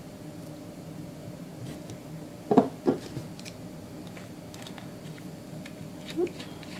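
Quiet room with a faint steady hum, and small handling noises from a nail polish bottle and brush while a swatch stick is painted: two soft knocks close together about two and a half seconds in, with a few faint ticks.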